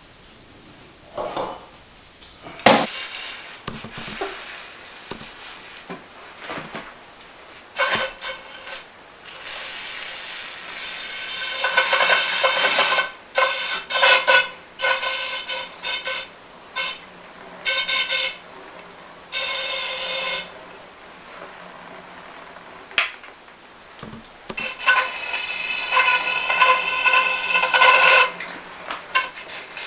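Knocks and clinks of small metal fork valving parts being handled, then repeated hissing bursts of spray, from under a second up to a few seconds long, as the parts are cleaned out.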